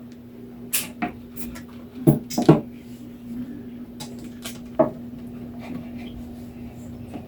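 Light knocks and rustles of a plastic hamster house being handled and set into the cage, the loudest two knocks about two seconds in, over a steady low hum.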